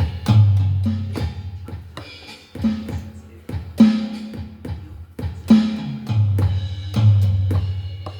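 Donner electronic drum kit being played: kick and snare strikes, several hits a second, with deep drum tones that ring on for about a second after the heavier hits. A faint steady high whine runs underneath.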